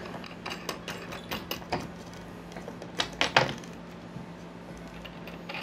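Light clicks and taps of a nut and washer being handled and threaded by hand onto a faucet supply tube, scattered irregularly, with the loudest pair about three seconds in.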